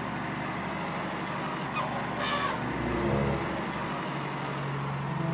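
Sound effect of a truck engine running steadily as the truck drives, with a short honk about three seconds in.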